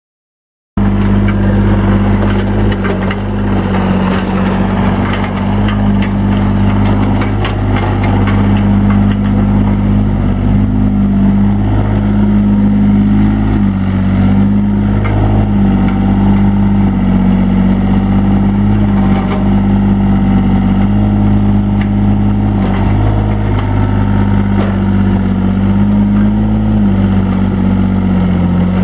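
Yanmar three-cylinder diesel engine of a 1998 Takeuchi TB045 compact excavator running at steady throttle, starting abruptly about a second in. Its pitch dips slightly now and then as the arm and boom hydraulics are worked.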